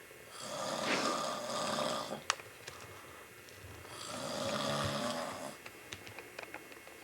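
A man snoring in his sleep: two long snores, each lasting about a second and a half to two seconds and about four seconds apart, with a single sharp click between them.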